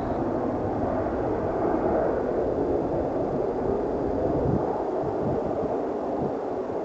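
Hawker Siddeley Andover C1's twin Rolls-Royce Dart turboprop engines running as the aircraft flies past low, a steady rushing drone.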